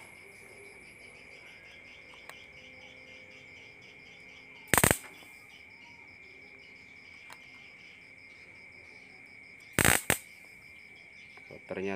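Flyback transformer of a Sharp Alexander Pro 21N CRT television arcing: two loud, sharp spark snaps about five seconds apart, the second a quick double crack, with a couple of faint ticks between. This is the short-circuit-like crackle of a failing flyback spitting sparks.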